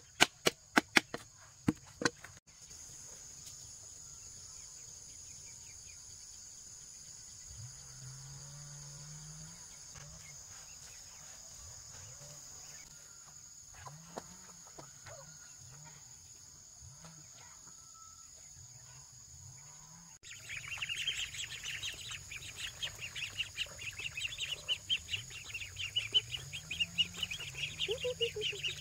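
A quick run of sharp knocks in the first two seconds, then a steady high insect drone with scattered low calls. About two-thirds of the way in, a poultry flock sets up a loud, dense chorus of rapid chirps.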